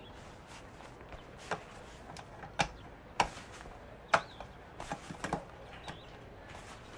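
A handful of short, sharp clicks and taps at irregular intervals over a faint steady hiss, the loudest about a third and halfway in.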